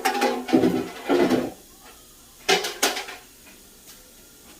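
Dishes and food containers clattering and clinking as they are taken out of a refrigerator, in two bursts about two seconds apart.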